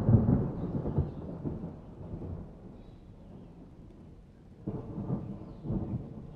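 Metal serving spoon scooping chickpea curry in a pot and tipping it onto a plate: low, muffled scrapes and knocks in two bursts, at the start and about five seconds in.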